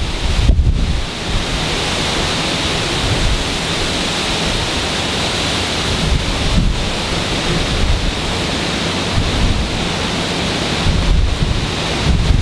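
Hurricane-force wind and heavy driving rain, a loud steady rushing noise. Gusts buffet the microphone with low rumbling thumps, heaviest in the first second and again near the end.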